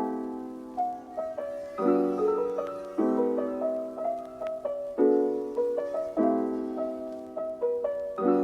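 Gentle solo piano background music, chords struck about once a second and left to ring and fade.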